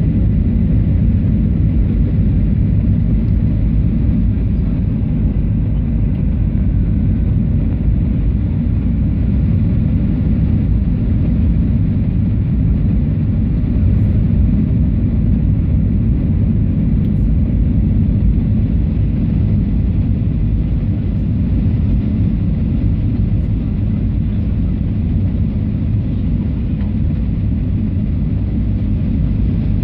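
Steady low cabin noise of a Ryanair Boeing 737-800 on final approach: jet engines and rushing air heard from inside the passenger cabin.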